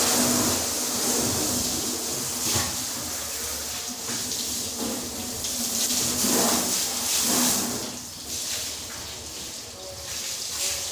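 Water from a garden hose spraying onto a car's bodywork: a continuous hiss with splashing that swells and eases as the stream moves over the panels.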